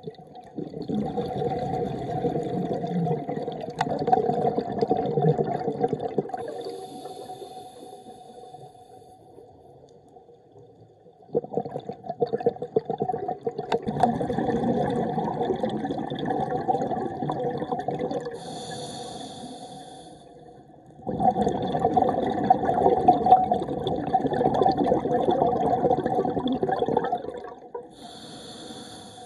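A scuba diver breathing through a regulator underwater: three long exhalations of rushing bubbles, each followed by a short hissing inhalation.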